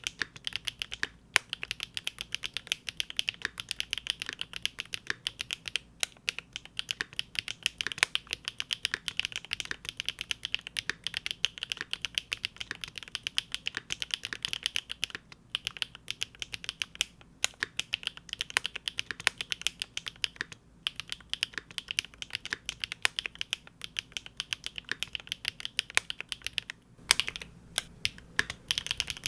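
Fast continuous typing on a Big Whale custom mechanical keyboard with GEON Raw Zero switches on a polycarbonate plate: dense, crisp keystroke clacks with a few brief pauses and an occasional louder stroke.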